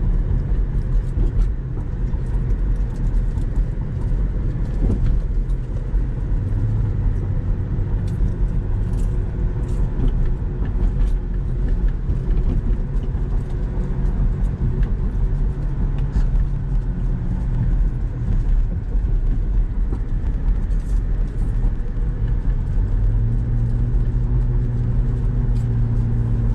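Car driving, heard from inside the cabin: a steady low road and engine rumble, with the engine's hum growing stronger at times, most clearly near the end.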